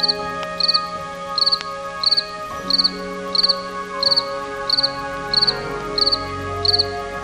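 Cricket chirping in an even rhythm, short high-pitched chirps of a few quick pulses each, about three chirps every two seconds, over steady background music.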